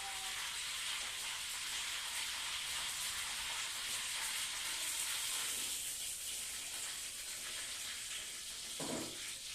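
Food frying in hot oil in a pan: a steady sizzle, with one short dull sound near the end.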